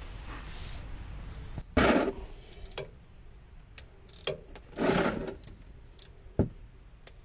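A plastic oil catch pan slides across a concrete floor twice, about two seconds in and again about five seconds in, with a few light metal clicks from a ratchet wrench on the oil drain bolt and one sharp click near the end.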